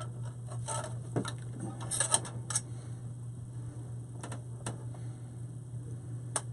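Scattered light metal clicks and rattles as a metal belly band motor mount is handled and loosened by hand, loudest about two seconds in, over a steady low hum.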